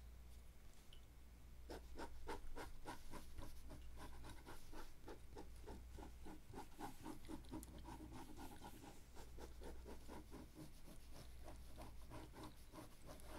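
A pen scratching across paper in quick, repeated drawing strokes, close to the microphone. The strokes start a couple of seconds in and run on steadily.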